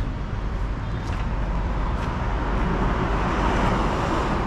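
Steady low vehicle rumble with a broad hiss, growing slightly louder and brighter about three seconds in.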